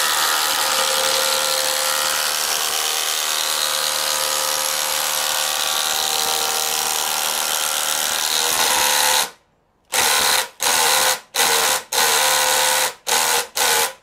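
Panasonic EZ1PD1 impact driver hammering a 10-inch timber screw into a wooden beam, running continuously for about nine seconds. It then fires in a string of short bursts as it struggles to drive the screw head flush.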